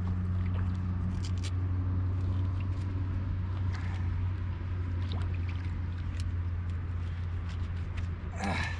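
Steady low hum with scattered small clicks, drips and wet squelches as a freshly landed catfish is handled in a boat, and a brief louder rustle near the end.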